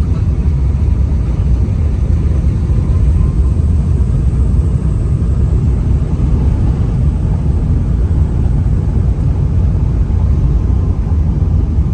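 Steady low rumble of a vehicle travelling along a road.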